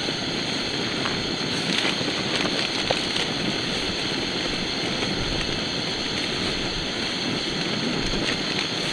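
Portable gas camping stove burner running with a steady roaring hiss, with a few faint rustles and clicks over it.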